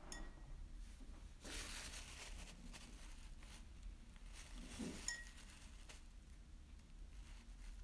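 Faint handling sounds of watercolour painting: a light clink at the start and another about five seconds in, with a brief rustling hiss around two seconds in.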